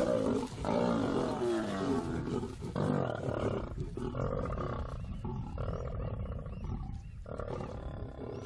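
Lions growling and snarling in a string of harsh calls, some short and some held about a second: a squabble over a carcass.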